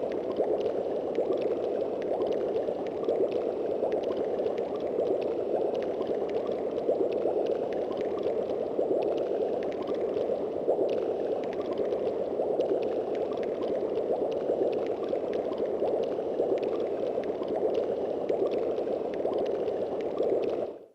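Yamaha YPT-300 Portatone keyboard playing a water-like sound effect, a steady bubbling, pouring noise held without a break, which cuts off suddenly at the end.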